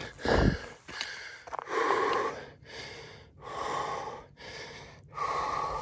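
Heavy breathing of a hiker climbing a steep trail, a loud breath about once a second: panting from the exertion of the uphill climb.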